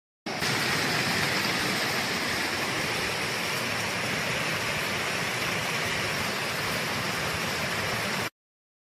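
Torrential cloudburst rain: a dense, steady hiss of heavy rainfall that starts abruptly just after the start and cuts off suddenly near the end.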